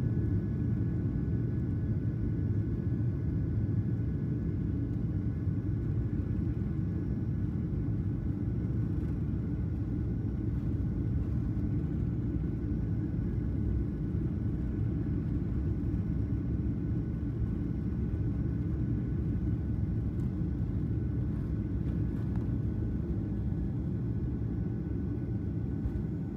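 Airliner cabin noise as the plane speeds down the runway: a steady, deep rumble of engines and wheels, with a faint steady whine above it.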